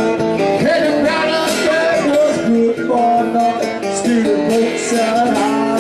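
Acoustic guitar played live in a song, with steady strummed and picked notes throughout.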